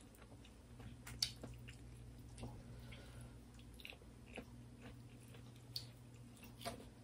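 Faint chewing and mouth sounds of people eating a rice and curry meal by hand, with scattered soft clicks and smacks over a low steady hum.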